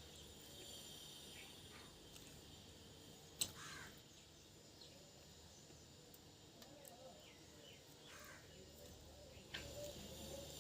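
Near silence: faint room tone with a sharp click about three and a half seconds in and a softer one near the end.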